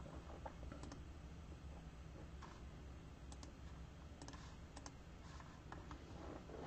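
Faint, scattered clicks of a computer mouse and keyboard, some in quick pairs, over a low steady hum.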